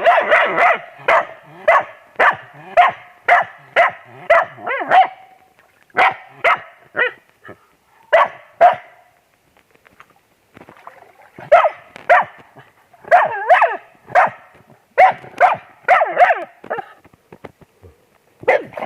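Dog barking over and over in quick runs of sharp barks and yips, with a pause of a couple of seconds about halfway through.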